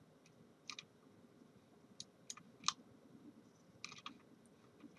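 Computer mouse clicking, faint and at irregular intervals, about half a dozen clicks with some in quick pairs, as parts are selected in CAD software.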